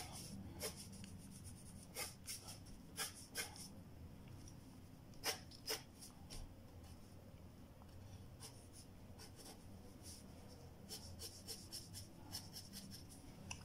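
Wooden graphite pencil scratching on paper in many short, quick sketching strokes, faint and irregular.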